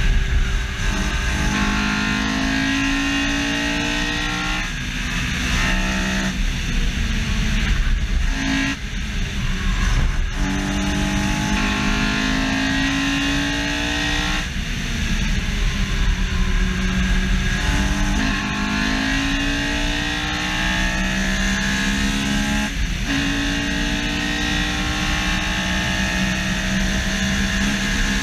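Honda S2000's F20C four-cylinder engine at hard throttle, its note climbing in pitch and dropping sharply at each gear change, again and again. It is heard from a bumper-mounted camera, with road and wind rumble underneath.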